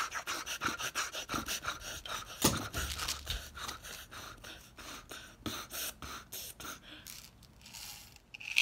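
Quick, shallow panting, several breaths a second, acting out nervousness. A few louder knocks come from handling a plastic pill bottle, and the panting eases near the end.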